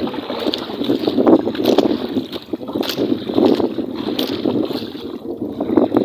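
Water sloshing and lapping around a small fishing boat in uneven swells, with wind buffeting the microphone and a few light knocks as the longline is hauled in.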